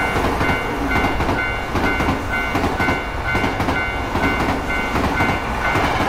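A railroad crossing warning bell dinging in a quick, even rhythm while a train passes with a steady rumbling rush of wheel noise.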